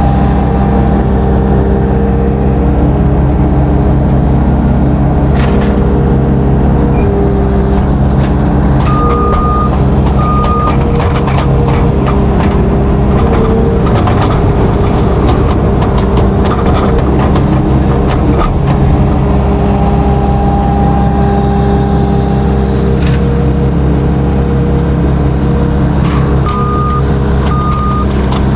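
Heavy farm vehicle's diesel engine running steadily, with scattered knocks and clanks. A pair of short high beeps sounds about nine seconds in and again near the end.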